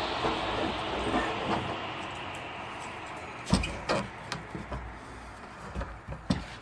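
Table saw winding down after a rip cut, its whir fading away over the first few seconds. After that come several sharp wooden knocks as the sawn oak board is handled against the sawhorse.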